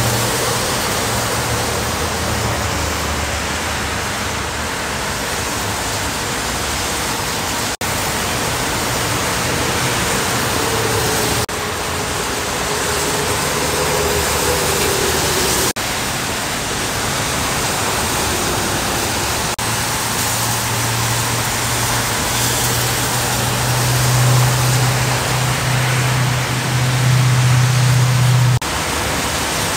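Steady hiss of freeway traffic on rain-soaked lanes: tyres spraying water, with rain falling. A low engine drone from passing trucks sits under it at the start and grows louder over the last several seconds.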